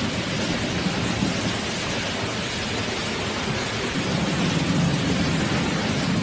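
Automatic car wash running: a steady rushing of water spray and rotating brushes against the car, growing a little louder after about four seconds.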